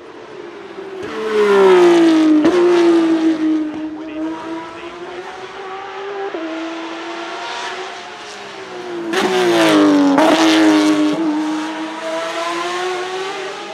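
Porsche 911 race cars' 4.0-litre flat-six engines at full throttle on a hillclimb, passing close twice, about a second in and again about nine seconds in. Each pass is loudest as the car goes by, its pitch sweeping down, and then the engine pulls on steadily with quick breaks at the gear changes.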